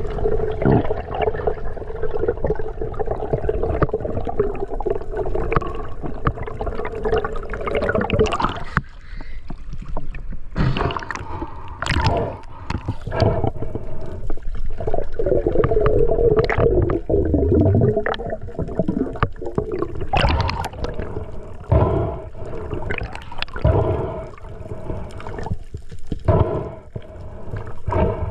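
Underwater sound through a camera housing: muffled water gurgling and rumbling, a steady low hum and many sharp knocks and clicks.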